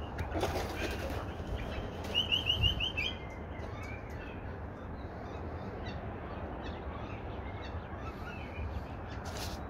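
Australian magpies: a quick run of about five short, high chirping calls about two seconds in, over faint outdoor background.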